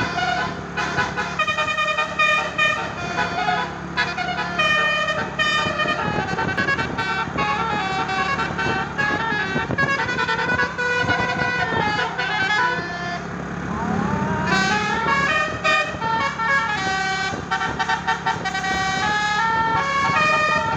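Telolet basuri multi-tone musical air horn on a tour bus playing a melody of stepped horn notes over the steady drone of the bus engine. The tune breaks off briefly about thirteen seconds in, then starts again.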